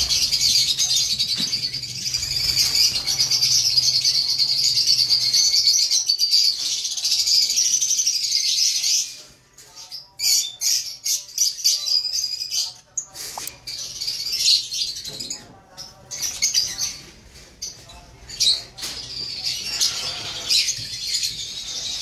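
Many lovebirds chattering together: a dense, high-pitched twittering for about the first nine seconds, then thinning to scattered chirps and calls.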